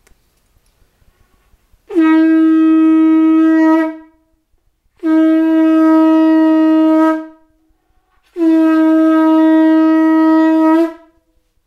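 Three long, steady blasts on a blown horn, each a single held note of two seconds or more, with about a second of silence between them.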